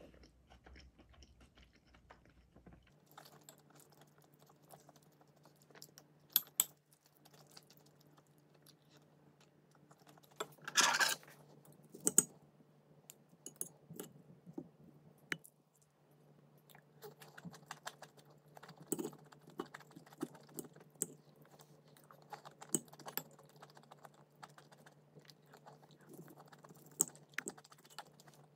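Quiet eating sounds: irregular clicks and taps of utensils and chewing, with one brief noisy burst about eleven seconds in. A steady low hum starts about three seconds in.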